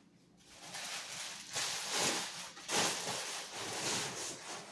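Nylon tent carry bag rustling as it is handled, in several swishing swells.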